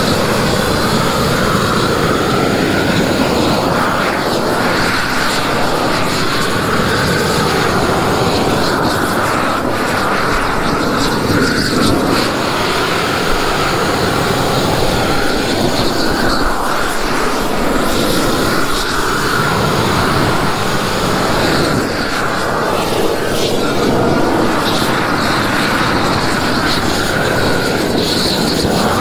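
Propane roofing torch burning steadily at full flame with a loud, continuous rushing noise as it heats the underside of a torch-down modified-bitumen membrane roll while the roll is laid.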